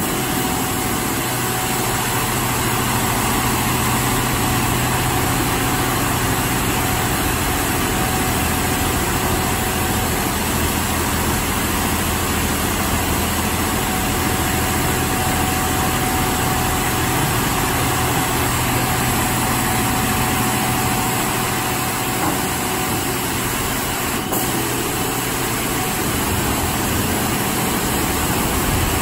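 D&S Quicksilver automatic rollover car wash running over a pickup truck: a steady hiss of water spray over a constant machine hum.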